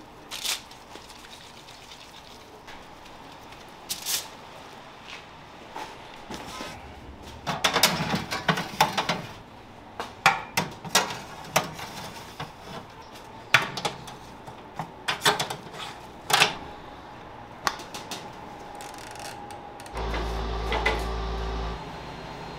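Metal wire racks of a Roller Grill countertop convection oven clinking and knocking as they are slid into the oven, a series of sharp clicks that come thickest in the middle. Near the end a steady hum sets in, loud for a couple of seconds and then settling lower as the oven runs.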